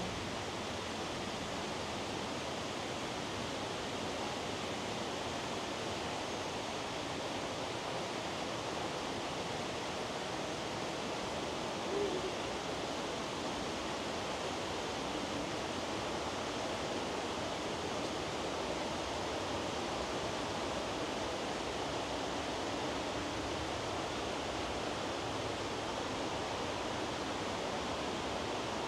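Steady rushing of river water, with one brief low call about twelve seconds in.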